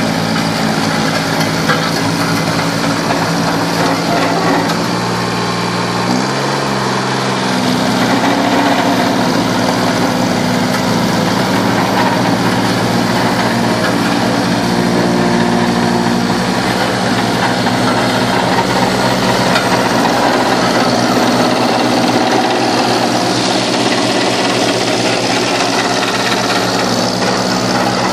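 Ammann SV 12 tandem roller's small diesel engine running steadily as the roller drives. The engine note changes about six seconds in, then holds steady.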